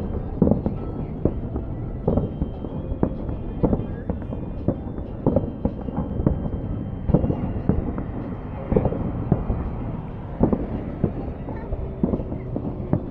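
Aerial fireworks going off in an irregular barrage: sharp bangs and booms about one to two a second over a continuous low rumble.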